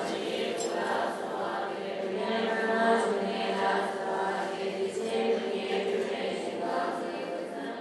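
Many voices chanting together in a steady, sustained Buddhist prayer chant over a held low drone, fading near the end.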